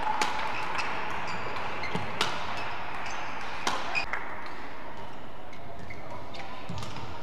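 Badminton rackets striking a shuttlecock: three sharp cracks in the first four seconds, each one to two seconds apart. Short squeaks of court shoes come in between, over a steady background of hall noise.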